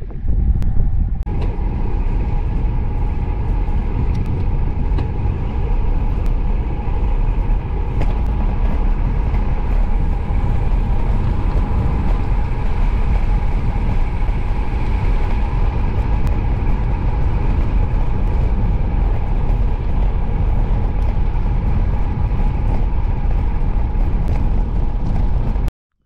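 Road-bike riding noise: wind rushing over the camera microphone and tyres running on rough asphalt, a steady low rush with a constant hum through it, cutting off suddenly near the end.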